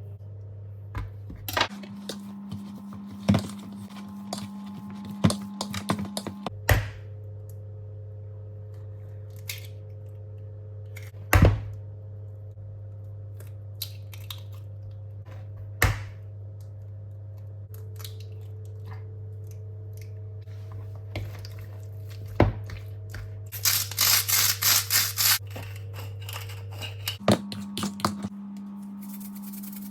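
Household objects being handled, giving scattered knocks and clicks, the loudest about a third of the way in, over a steady electrical hum. Around 24 seconds in there is a short run of crisp rustling.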